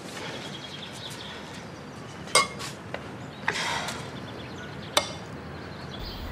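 A few sharp clinks of crockery and cutlery, about two and a half seconds in and again near five seconds, with a short rustle between them, over a quiet room background.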